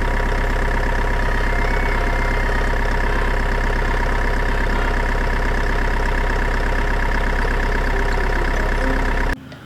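Truck engine idling, steady and loud, cutting off suddenly near the end.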